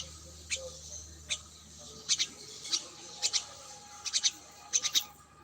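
A small animal, bird or rodent, giving short sharp high-pitched chirps or squeaks. They come in quick pairs and triplets every half second to a second, over a faint low hum.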